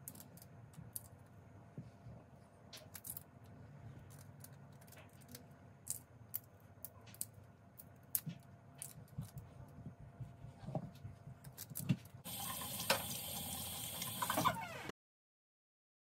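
Lychee shells cracking and being peeled with a small paring knife: scattered small clicks and crackles. About twelve seconds in, a louder crinkling as the paper towel holding the peels is gathered up, cut off suddenly near the end.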